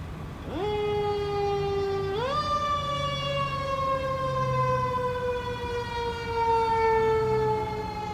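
Emergency vehicle siren winding up sharply, holding, climbing again, then slowly falling in pitch.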